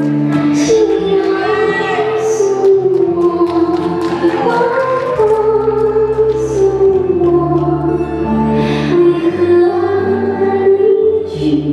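Ballroom dance music: a song with a singing voice over sustained chords and a bass line, playing steadily.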